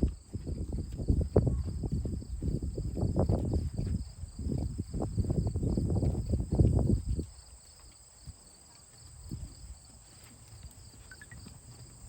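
Horse being ridden: loud, irregular low thuds and jostling from its hoofbeats and movement for about seven seconds, then much quieter. Insects chirr steadily at two high pitches throughout.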